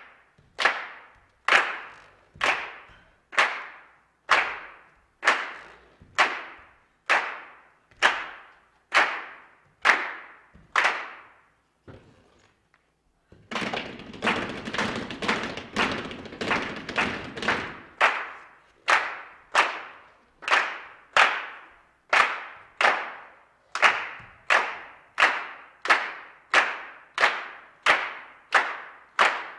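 A steady beat of sharp, ringing percussive strikes, about one and a half a second. The strikes break off for about two seconds a little before the middle, come back faster over a low hum for a few seconds, then return to the steady beat.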